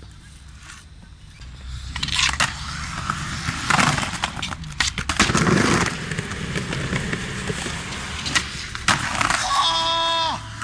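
Skateboard wheels rolling fast over paving stones, with a few sharp clacks of the board popping and landing. A person shouts near the end.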